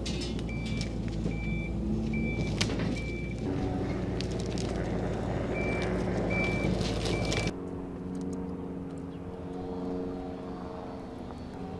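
A heavy vehicle's backup alarm beeping, a high steady beep repeating a little under twice a second over a low engine rumble; the beeping pauses for a couple of seconds and starts again. About two-thirds of the way through, the sound cuts to a quieter steady engine hum.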